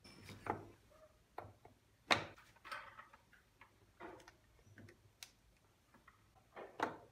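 Scattered light knocks and clicks of wood and plastic as a small plywood phone holder is seated on a wooden French cleat rail and a phone is set into it, the sharpest knock about two seconds in. Quieter handling sounds follow as the charging cable is plugged in.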